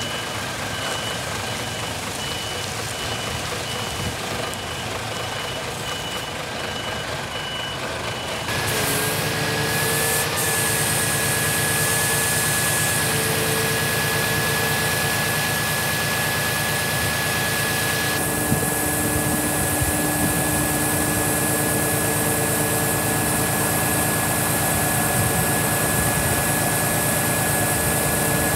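Scania R410 truck's six-cylinder diesel running with a regular electronic beeping. About eight seconds in the beeping stops, the engine speeds up and a steady whine comes in as the JOAB hooklift's hydraulics work the hook arm.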